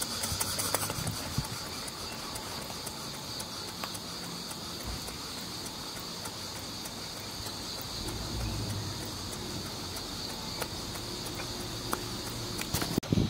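Stuart Victoria model horizontal mill steam engine running on steam, with a steady hiss and light, scattered ticking from the moving valve gear and crosshead.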